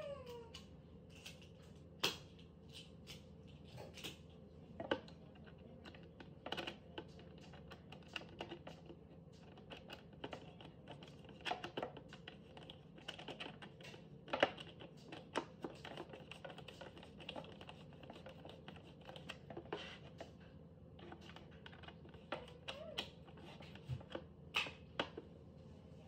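Scattered, irregular light clicks and taps from particleboard panels and hardware being handled and fitted during assembly of a child's chair, over a faint steady hum.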